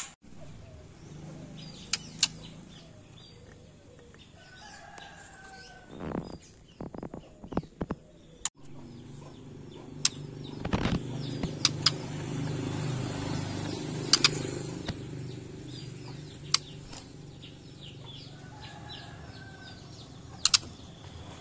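Young white-rumped shama fluttering and hopping about a wooden-barred cage: wing flaps and several sharp knocks as it lands on perches and bars.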